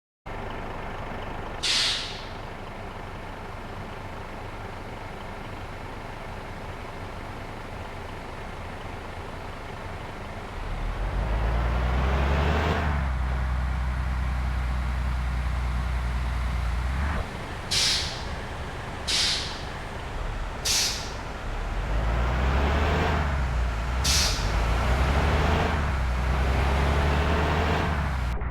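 A bus running, with short sharp hisses of released compressed air from its air system: one about two seconds in and four more in the second half. A louder, deeper drone comes in about eleven seconds in.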